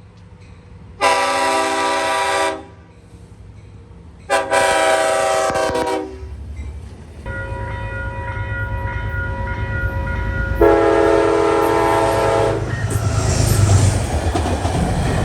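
Long Island Rail Road diesel locomotive horn sounding long blasts, two in the first six seconds and a third about ten seconds in. A low rumble of the passing train's engine and wheels builds from about seven seconds in.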